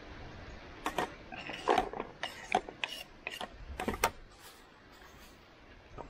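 A quick, irregular run of about a dozen sharp clicks and light knocks of hard objects over about three seconds, then it stops.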